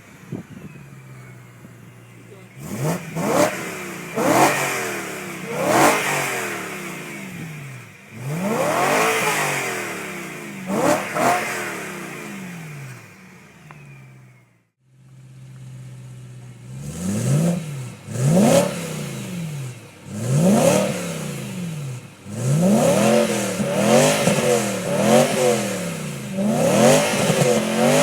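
BMW E9X M3's V8 being revved repeatedly from idle through its exhaust, each rev rising sharply and falling back. There is a brief drop-out about halfway through, after which the revs come quicker, as short blips several a second apart.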